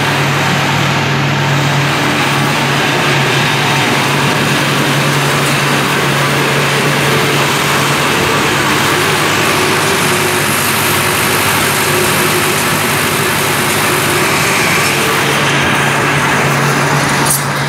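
Large belt-driven fan of a cotton picking machine running steadily at speed: a loud, even rush of air over a steady low hum.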